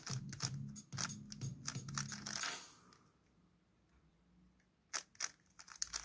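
Plastic stickerless 3x3 Rubik's cube clicking and clacking as its layers are turned quickly by hand, over background music. The turning stops about halfway through, then a few sharp clicks come near the end.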